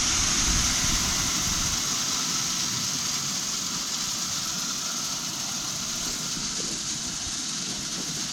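Shelled corn pouring out of a combine's opened clean grain elevator in a steady rushing hiss that slowly eases as the flow lessens. The elevator is packed with grain after its drive belt broke.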